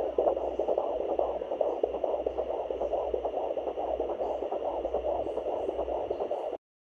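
Fetal heartbeat at 16 weeks picked up by a handheld fetal Doppler monitor: a fast, whooshing pulse at about 140 beats a minute over static hiss. It cuts off abruptly near the end.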